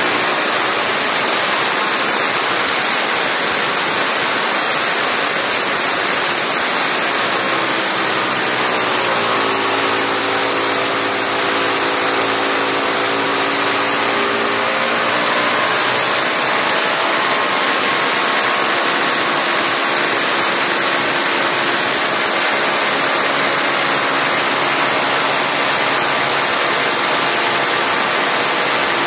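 Single-cylinder Briggs & Stratton lawnmower engine running wide open on oxygen and fuel with no throttle butterfly: a loud, steady high-revving howl with a strong hiss. Its pitch dips about nine seconds in and rises again about six seconds later.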